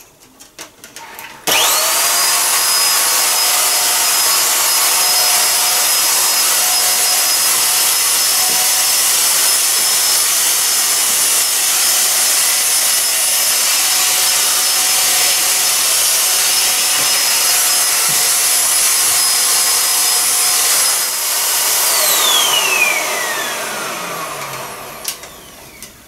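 Kitfort KT-581 corded upright vacuum cleaner switched on about a second and a half in, its motor whine climbing quickly to a steady high pitch, then running steadily while vacuuming the floor. Near the end it is switched off and the whine falls away as the motor spins down.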